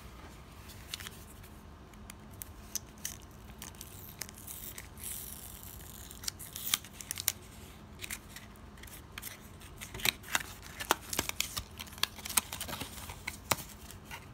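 Small cardboard trading-card box being opened by hand: its clear tape seal peeled and torn with a longer tearing hiss about five seconds in, then a run of sharp clicks and scrapes from the cardboard flap and card stock near the end.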